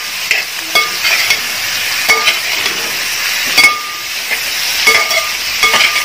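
A metal spatula stirring lemon pickle in a stainless steel pot, scraping and clinking against the pot again and again over a steady sizzle of the hot oil and masala.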